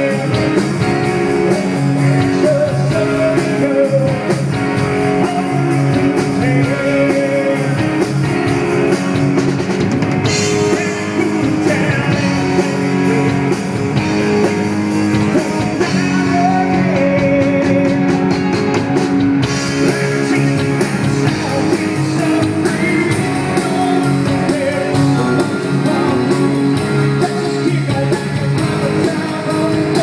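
Live band playing a song on guitars and drum kit, with a voice singing at times.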